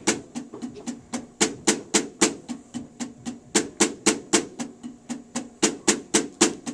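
Snare drum played with wooden sticks in an even stream of single strokes, about four a second, with some strokes clearly louder than the soft ones in between: accents played as free strokes.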